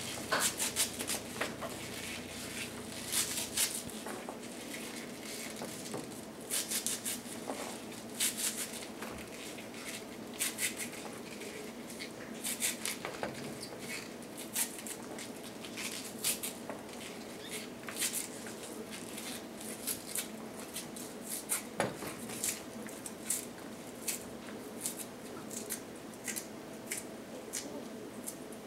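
Serrated kitchen knife slicing salad greens held in the hand over a plastic bowl: irregular small cutting snips and clicks with leaf rustle, over a steady low hum.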